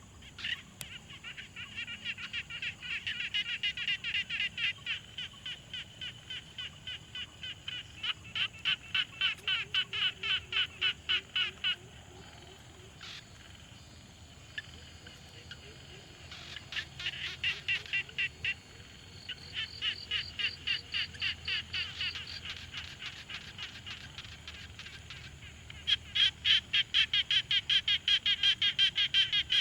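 Frog chorus: trains of evenly spaced, rapid croaks, about three or four a second, coming in bouts with a pause of a few seconds near the middle.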